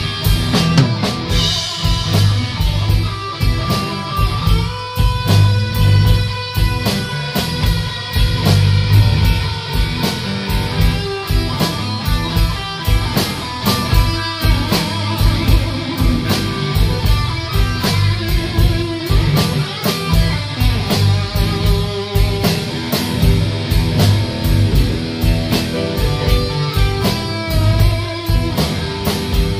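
Live blues-rock band playing an instrumental passage: electric guitar lead with held and bent notes over bass and a steady drum beat.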